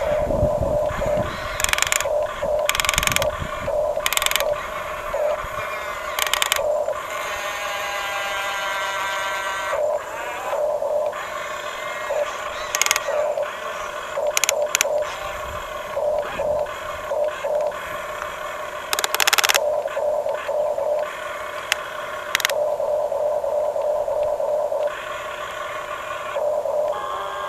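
Small electric motors and plastic gearboxes of radio-controlled toy construction machines whining in short runs that start and stop again and again, with sharp clicks and clatter in between.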